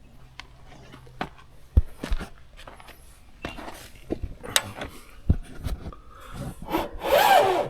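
Scattered knocks and taps, then a loud rasping, scraping stroke about seven seconds in, from a hand tool worked against the mill.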